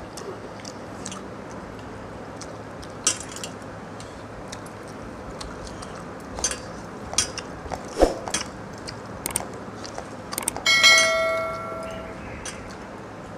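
Eating by hand: scattered lip smacks, chewing and small clicks as rice is scooped from steel bowls and eaten. Near the end comes a sudden bell-like metallic ring that fades over about a second.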